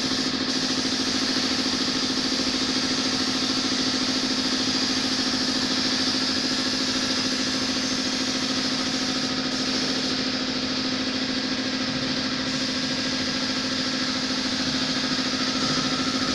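Large engine running steadily at a constant speed: an unbroken machine drone with a strong steady hum.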